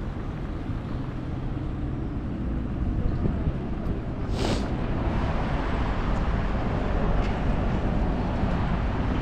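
Outdoor town street ambience: a steady low rumble that grows slightly louder, with a short hiss about four and a half seconds in.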